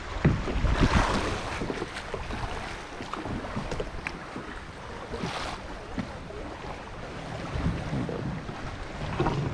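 Small waves sloshing and lapping against a plastic kayak's hull, with wind buffeting the microphone and a few light knocks.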